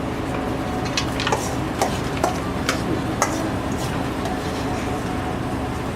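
Steady machine hum of kitchen equipment, with a run of light clicks and taps from food and utensils being handled between about one and three seconds in.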